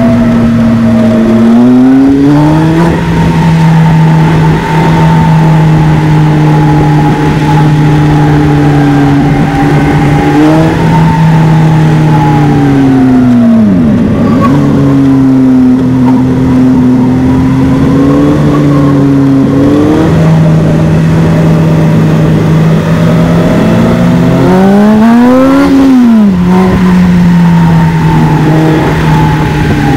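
Polaris Slingshot engine under way, its pitch stepping and gliding with gear changes and throttle. The pitch drops deeply about halfway through, then the engine revs quickly up and back down near the end.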